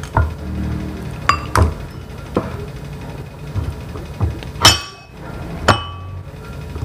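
Metal ladle clinking against porcelain soup bowls while chicken pieces are ladled out: a string of separate sharp clinks, the two loudest a little over halfway through, each with a short ring.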